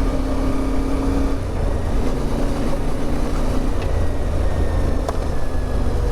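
CFMOTO 450MT parallel-twin motorcycle engine running at a steady cruise on a dirt road, with a single sharp click about five seconds in.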